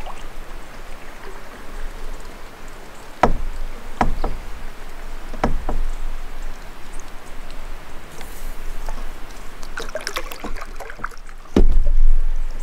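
Canoe being paddled on calm water: water trickles and drips from the paddle strokes. Four knocks of the paddle against the canoe come through, the loudest near the end.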